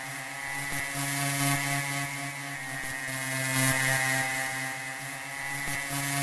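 A steady droning hum made of several held tones that swell and fade together every two seconds or so.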